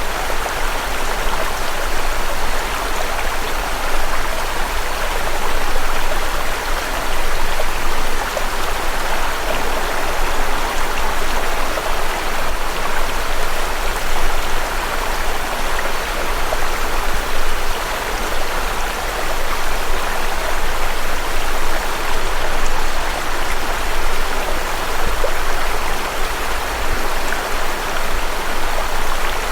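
Steady rushing water noise with a constant low hum underneath.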